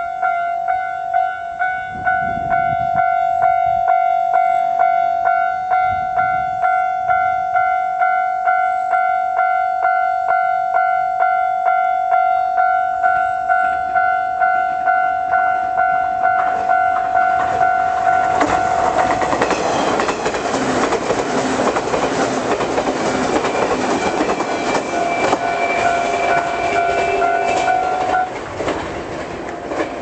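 Japanese level-crossing warning bell ringing in a rapid, even repeat. JR West's limited express Kitakinki electric train runs through the crossing from about 18 seconds in, its noise swelling over the bell. The bell stops a couple of seconds before the end while the train is still passing.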